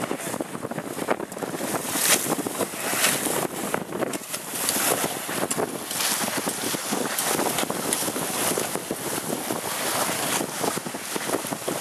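Wind buffeting the microphone in irregular gusts, over the wash and slap of choppy sea water.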